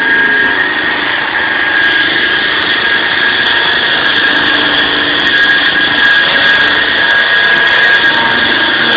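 SAW160 concrete saw running steadily, a loud even machine noise with a steady high-pitched whine.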